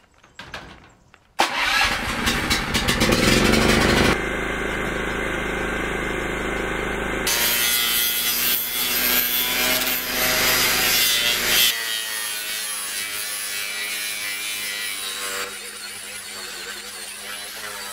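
Angle grinder with a sanding disc running flat over the faces of pallet-wood boards, grinding and rubbing the wood. The sound starts suddenly about a second and a half in after a quiet opening, then changes abruptly several times as short takes follow one another.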